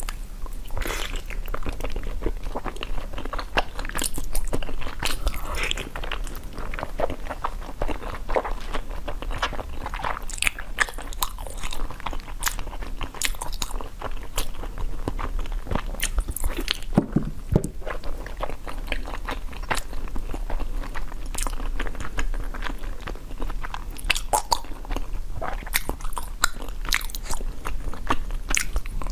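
Close-miked eating: repeated biting and chewing with many sharp, crisp crunches at an irregular pace throughout.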